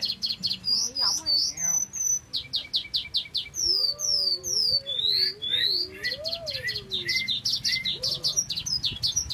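Caged lark singing a fast, unbroken song of rapid high trills and rising slurred whistles. A lower, wavering whistle runs underneath from about four to seven seconds in.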